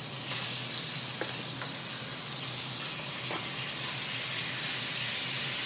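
Cubed chicken sizzling in hot oil in a frying pan. The sizzle jumps up just as the meat goes in and holds steady, with a few light clicks as it is stirred.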